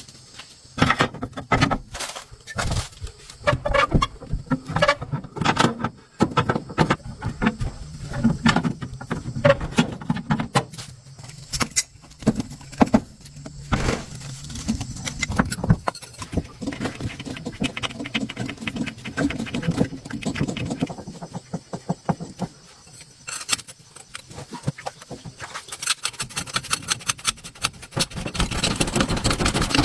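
Irregular metallic clinks, knocks and scrapes of hand tools working on a car wheel, thickening into a denser run of strokes near the end.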